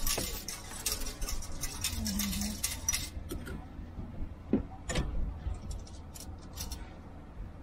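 Small metal objects clinking and clicking, typical of coins being handled while paying at a toll machine. A dense flurry of light clinks fills the first three seconds, followed by a few scattered clicks and two sharper knocks around the middle, over a steady low rumble.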